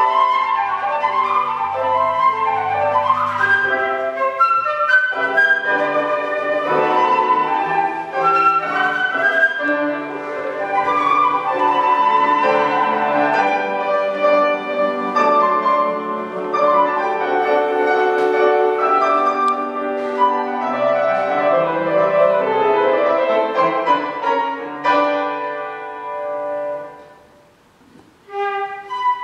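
Flute and grand piano playing a classical duet. The music dies away into a short pause near the end, then both start again.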